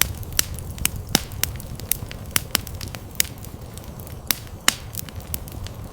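Crackling, with irregular sharp pops and snaps over a steady low rumble, as of a fire burning.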